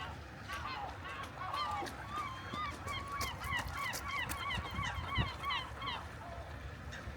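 Waterbirds on a lake calling: a fast, dense run of short repeated calls, several a second, starting about half a second in and dying away around six seconds, over a low steady background rumble.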